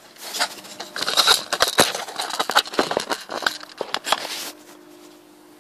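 Close handling noise: a quick, dense run of plastic clicks and crackles as the camera and the plastic solar light housing are handled right at the microphone, stopping about four and a half seconds in.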